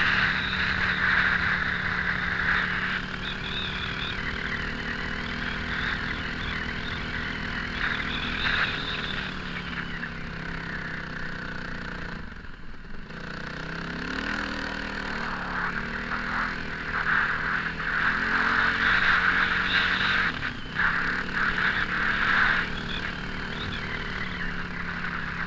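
Off-road motorcycle engine running under load, heard from on board, its pitch rising and falling with the throttle and a brief drop about halfway through as the throttle is closed. Wind rushes over the microphone throughout, louder near the start and again in the second half.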